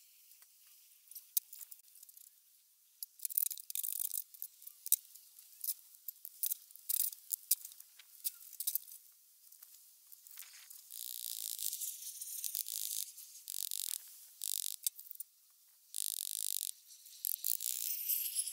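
Trowel scraping and clicking in sand-and-cement mortar as a concrete block is bedded: short gritty scrapes and sharp clinks, with two longer spells of steady scraping in the second half.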